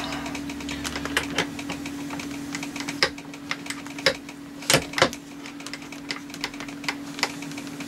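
Irregular metal clicks and knocks as a chuck is handled and fitted back onto the machine, a few louder knocks in the middle, over a steady machine hum.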